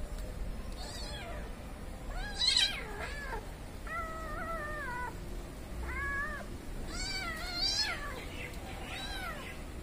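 Cats meowing, about six separate meows, the loudest about two and a half seconds in and a longer drawn-out one a little later.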